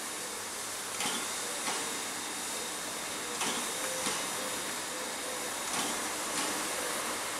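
Ol49 two-cylinder steam locomotive pulling slowly away from a stand, its exhaust chuffing in pairs of beats with a pair about every two and a half seconds, over a steady hiss of steam.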